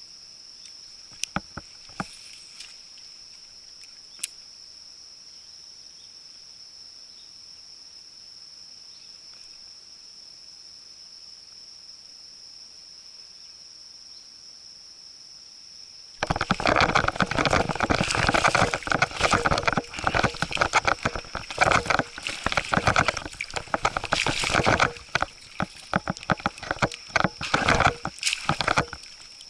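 A steady high-pitched insect drone with a few faint clicks. About halfway in, loud, irregular splashing and knocking of water close to the microphone starts and keeps going.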